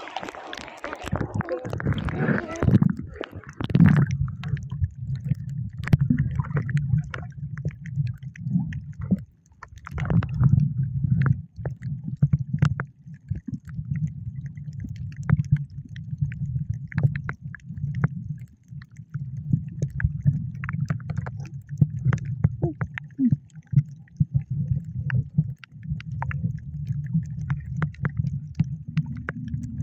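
Muffled underwater water sound: a low, wavering rumble with scattered faint clicks, with a busier burst of sound in the first few seconds.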